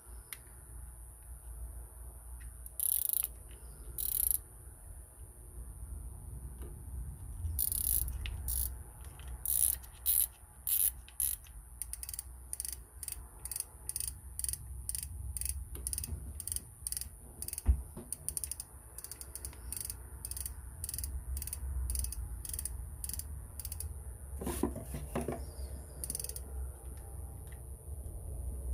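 Shimano Nexave C5000HG spinning reel being worked by hand: its mechanism clicks and ratchets in a run of short clicks, sparse at first, then about two a second, with one sharper knock midway.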